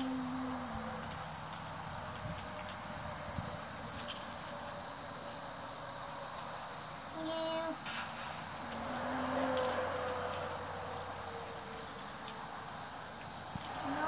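Insects chirping outdoors in a steady, even, high-pitched pulse, about two to three chirps a second. Now and then a short low hum from a child's voice.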